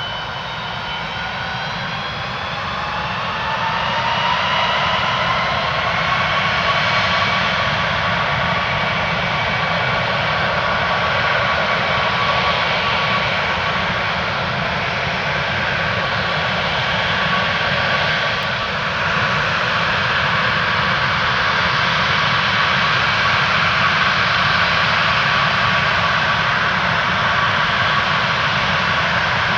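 An Antonov An-124-100's four D-18T turbofan engines spooling up to takeoff power. The whine rises in pitch and the sound grows louder over the first six seconds, then settles into a steady, loud jet roar with a high whine over it.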